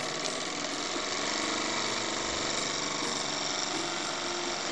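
Jensen 75 toy steam engine running at speed, a fast, even mechanical beat with a steam hiss, as it drives a small stepper-motor generator; it grows a little louder over the first second or so, then holds steady.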